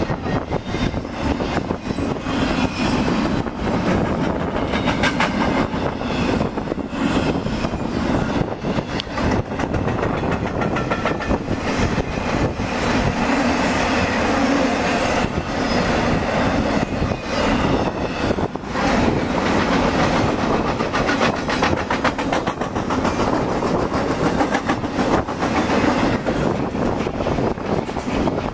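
Long freight train passing close at speed: a steady rumble of steel wheels on the rails with a dense, continuous clatter of clicks.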